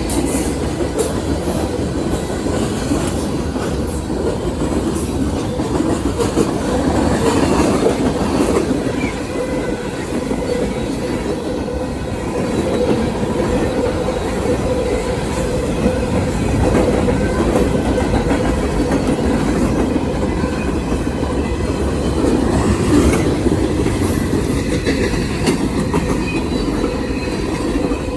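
Train cars rolling past in a steady rumble, their wheels clicking over the rail joints, with a faint steady tone over the top.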